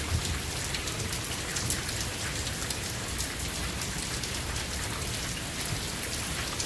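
Steady heavy rain falling on leaves, lawn and wet pavement, a dense patter of many small drop ticks over an even hiss.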